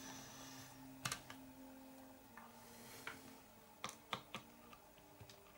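Faint clicks and taps of small plastic parts being handled and fitted on a radio-controlled short course truck's chassis, a handful of them spread irregularly, over a low steady hum.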